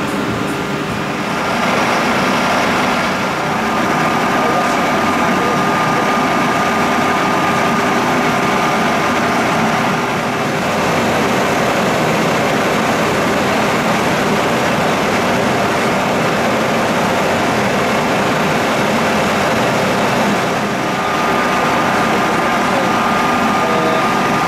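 VDF deep hole boring machine running: a steady mechanical whir with a constant hum as the workpiece turns in the chuck.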